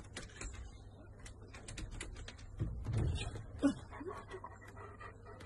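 A large dog's claws and paws clicking and tapping on wooden decking as it shifts about inside a wire pen. A brief louder vocal sound comes about three and a half seconds in.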